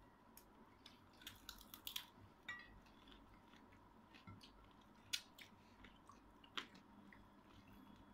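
Faint close-up eating sounds: a woman chewing dried fish (tuyo and danggit) and rice eaten by hand, with sharp mouth clicks and small crunches, a cluster of them about a second in and a few scattered after.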